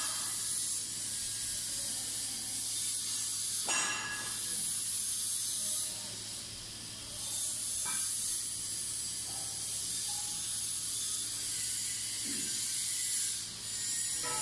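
Steady high hiss over a low hum, the background of a workshop hall. Light metal knocks and clicks come from hand work on a compressor casing, a sharper one about four seconds in and another about eight seconds in.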